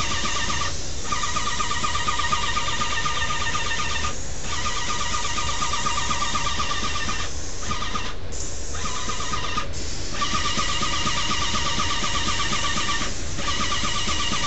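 Motor-driven spray equipment running with a steady high whine over a hiss. The whine cuts out briefly several times, about a second in, at four seconds, and a few more times after.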